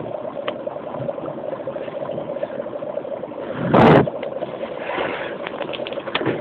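Dry ice in a bowl of water bubbling and hissing steadily as it pours out fog. About four seconds in there is a short, loud rush of noise.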